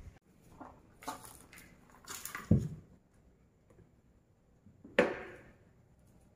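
Plastic food storage containers handled on a kitchen counter: light clatter and rustling, a dull thud about two and a half seconds in, and a sharp knock about five seconds in as a container is set down.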